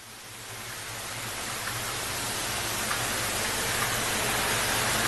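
Steady hiss that fades up gradually after an abrupt cut just before it, with a couple of faint ticks.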